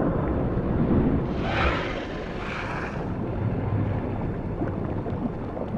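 A steady low underwater rumble, with a rushing whoosh that swells and fades about one to three seconds in.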